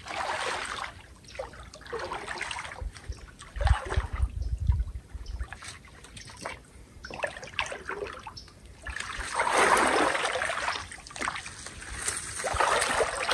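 Legs wading through knee-deep swamp water, sloshing and splashing in swells with each stride, with a low thump about four seconds in.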